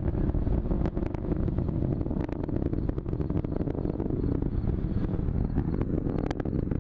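Atlas V rocket in ascent, its RD-180 engine and solid rocket boosters making a deep, steady rumble laced with sharp crackling.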